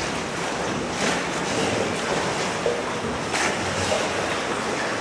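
Steady rushing noise of water and wind on the microphone from a small rowboat on the river, swelling briefly a few times.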